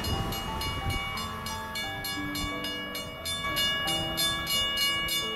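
Railroad grade-crossing warning bell ringing rapidly, about four strokes a second, over a low rumble.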